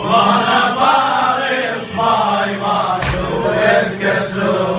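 A male voice chants an Arabic lament-style poem through a microphone with other voices joining in. Sharp strikes fall at a steady beat about every 1.2 seconds.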